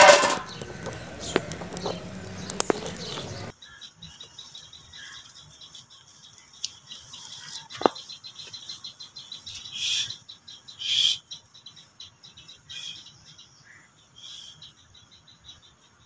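A steel plate clanks down as a lid on a pot over a crackling wood fire. About three and a half seconds in the sound changes to small birds chirping now and then over a faint, steady high hum.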